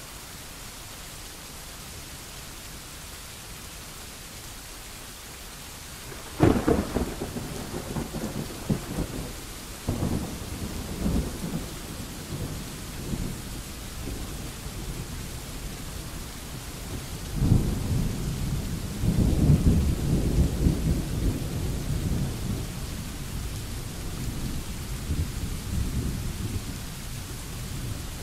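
Thunderstorm: steady rain hiss, broken about six seconds in by a sudden loud thunderclap that rolls on in low rumbles, with another crack near ten seconds. A second long peal of thunder starts a little past halfway and rumbles for several seconds before easing back to the rain.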